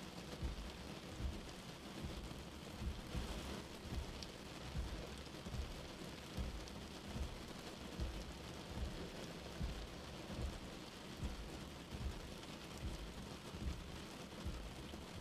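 Steady rain falling, with a soft low thump repeating a little more than once a second.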